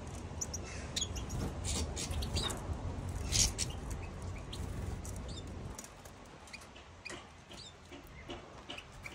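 European goldfinches giving short, high, squeaky chirps and twitters at scattered intervals, over a low rumble that fades about six seconds in.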